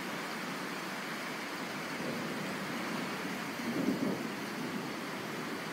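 Steady hiss of rain, with a brief low rumble about four seconds in.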